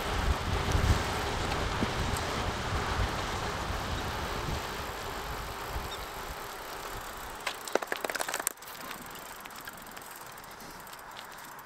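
Wind and road noise from riding behind a road bicycle, easing as the bike slows about halfway through. Near two-thirds of the way in comes a brief burst of sharp clicking as the rider coasts and dismounts.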